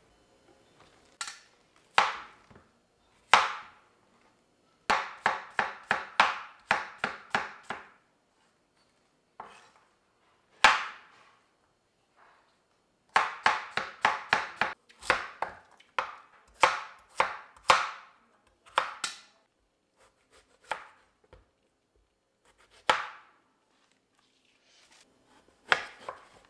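Kitchen knife chopping vegetables on a wooden cutting board, sharp strikes coming in runs of quick strokes with short pauses between; near the end it is slicing an eggplant.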